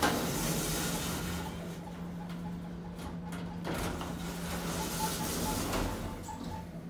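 Otis Gen2 lift's automatic sliding doors sliding open, then sliding shut about four seconds in, over a steady low hum from the lift.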